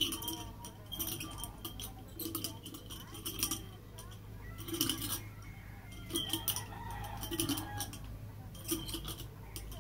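Stainless steel nunchaku swung and twirled, its chain links clinking and jangling in short clusters of sharp clicks, roughly once a second.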